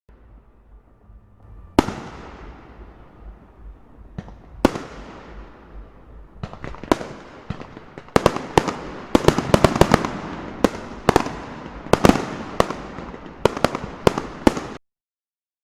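Fireworks going off: a few loud, separate bangs, each with a trailing echo, then a rapid volley of reports that ends abruptly.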